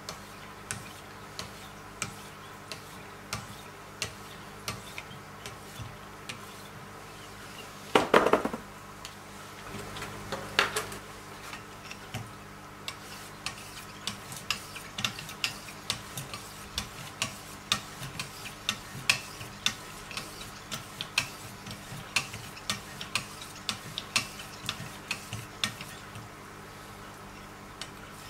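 Wicked Edge guided knife sharpener's hand-held stones being stroked along a steel blade, each stroke giving a short tick or scrape. The strokes come at about one and a half a second at first, then faster and closer together in the second half. A brief louder clatter comes about eight seconds in.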